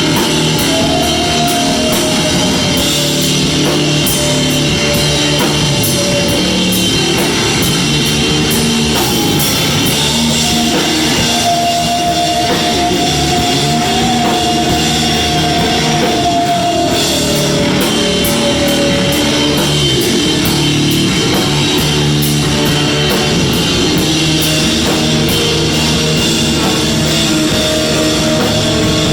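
Loud live rock band playing: driving drum kit and distorted guitars, with a long held tone that wavers in pitch over the top.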